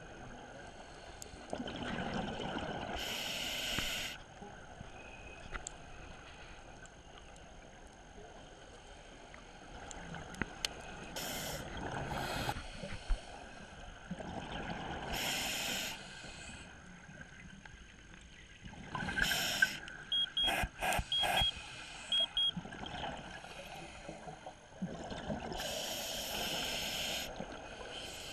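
Scuba diver breathing on a regulator underwater: bursts of exhaled bubbles rush past every few seconds, with a quieter hiss between. Just past the middle come several sharp clicks and three pairs of short high beeps.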